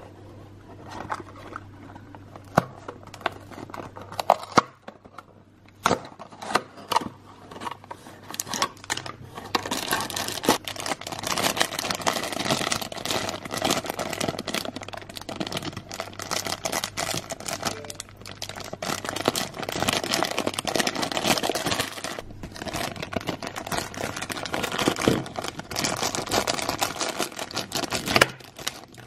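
Handling and opening a small cardboard toy box, with scattered taps and clicks, then a thin clear plastic bag crinkling and crackling at length as miniature toy pieces are unwrapped from it. A sharp knock near the end.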